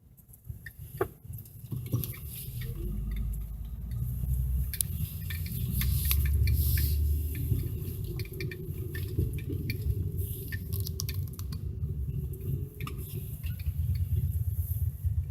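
Low rumble with scattered clicks and rubbing, the handling noise of a recording device.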